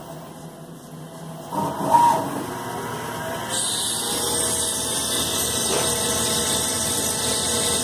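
Syil C6-B mini CNC lathe running, with a brief louder clatter about two seconds in; about three and a half seconds in its sound turns louder and hissier, and holds steady from there.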